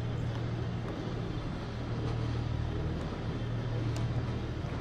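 A steady low engine drone, even and unbroken.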